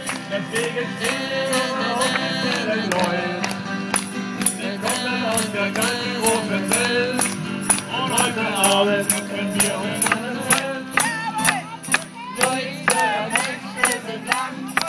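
Live German folk music from a small band of costumed musicians on a boat: acoustic guitar with a melody line over it and a steady jingling beat of about three strokes a second. The strummed beat grows more marked about ten seconds in.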